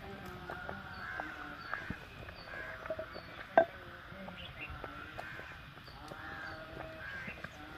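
Birds calling again and again in the background, short pitched calls overlapping throughout, with one sharp click a little past the middle.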